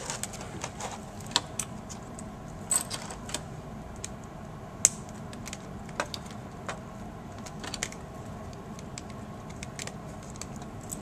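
Scattered small clicks and taps of plastic and metal parts being handled as the cable connector of a replacement laptop LCD panel is fitted, over a faint steady background hum; the sharpest click comes about halfway through.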